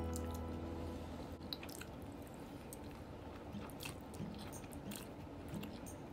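Close-up eating sounds of a mouthful of jjajangmyeon: wet chewing and small mouth clicks as noodles are sucked in. Background music trails off about a second in.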